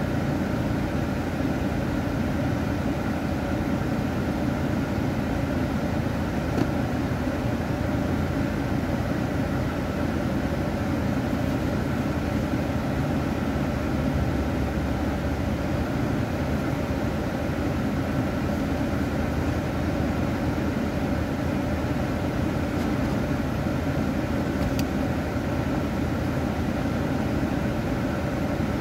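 Steady low hum of a car idling, heard from inside its cabin while it waits in traffic.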